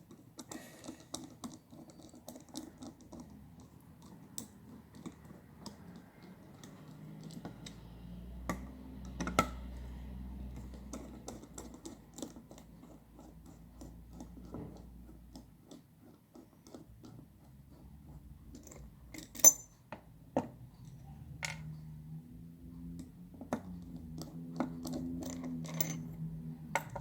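Small metal clicks and scrapes of a T10 bit driver backing out the faceplate screws of a Snap-on FHX80 ratchet head, with small parts being handled. There is one sharper click about two-thirds of the way through, and a low hum for several seconds in the middle.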